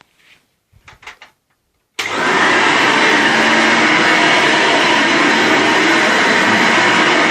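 1998 Hoover Runabout upright vacuum cleaner switched on about two seconds in, its motor starting abruptly and then running steadily and loudly.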